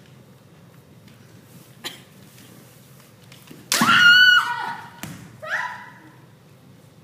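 Kendo strike: a bamboo shinai cracks on armour about two thirds of the way through, together with a loud, high-pitched kiai shout from a woman fencer held for under a second, followed shortly by a second, shorter shout that rises in pitch. A single light tap sounds earlier, before the exchange.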